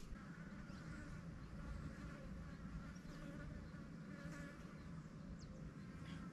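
A flying insect buzzing faintly and steadily.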